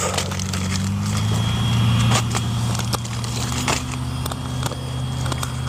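A nearby engine running steadily, its pitch rising slightly about a second and a half in and then holding, with scattered clicks and rustling of camping gear being handled.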